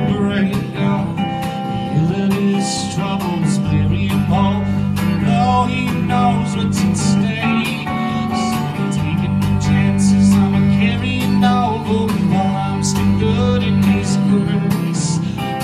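Live country-folk music: an acoustic guitar strummed steadily together with an electric guitar.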